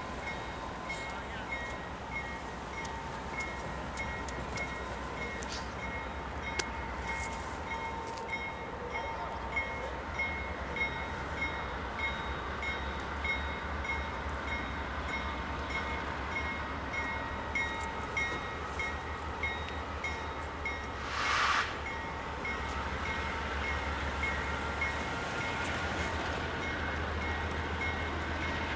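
Electronic railroad crossing bell ringing steadily, about one and a half strikes a second, over the low rumble of a BNSF diesel locomotive's engine running close by. A short hiss comes about three-quarters of the way through.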